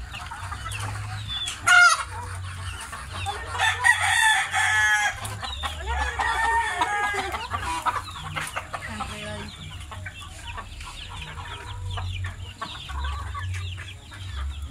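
A flock of chickens, young roosters among them, clucking continually while feeding, with a sharp loud squawk about two seconds in and a rooster crowing about four seconds in, followed by another loud call a couple of seconds later.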